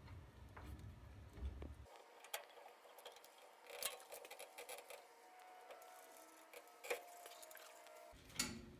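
Faint, scattered metallic clicks and knocks from a 1982 Nissan 280ZX brake caliper being fitted over the rotor onto its bracket by hand.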